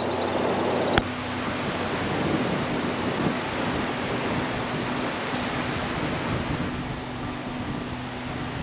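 Steady rushing of wind over the microphone, with one sharp click about a second in.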